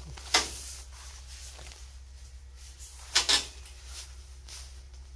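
A few short, sharp crackles: one about half a second in and a quick double one about three seconds in, over a steady low hum.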